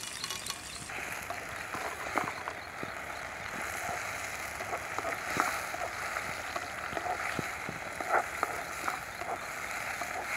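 Chopped onions, tomatoes and greens sizzling as they fry in a metal pan, with scattered clicks and scrapes from a wooden spatula stirring against the pan. The sizzle gets louder about a second in.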